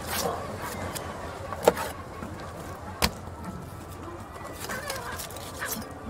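Knife work on a fish at a market stall: irregular scraping and cutting on the table, with two sharp knocks about a second and a half and three seconds in.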